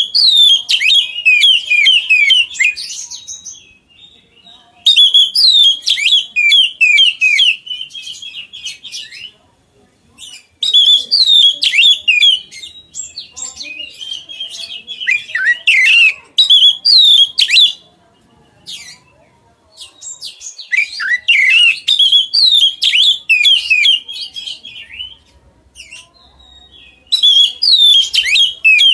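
Oriental magpie-robin (kacer) singing loudly in about six bursts of rapid, varied whistled phrases full of quick pitch sweeps, with short pauses between the bursts.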